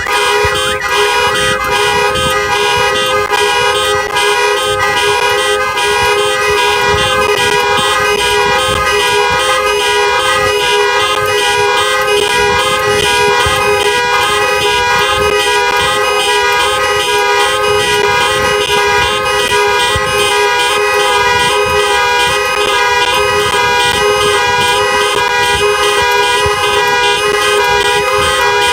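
Loud car horn held in one continuous blast, several steady horn tones sounding together without a break, as a car alarm going off.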